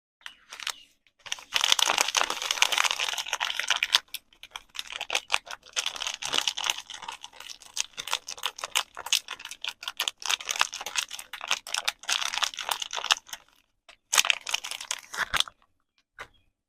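Soap packaging being handled and unwrapped: crisp crinkling and crackling in bursts of dense clicks, with brief pauses. It stops for a moment about four seconds in and again near the end, before one last short burst.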